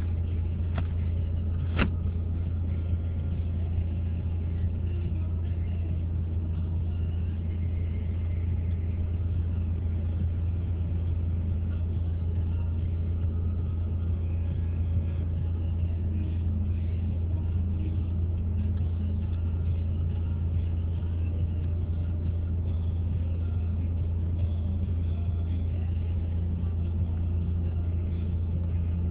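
Steady low rumble of a stationary car's engine idling, heard from inside the cabin, with one sharp click about two seconds in.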